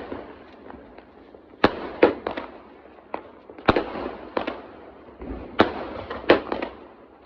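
A 60-shot aerial firework cake firing: loud sharp bangs about once a second, some in quick pairs, with a noisy fizz between the shots.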